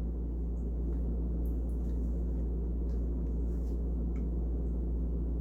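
Steady low background hum with a few faint ticks: room tone in a pause between speech.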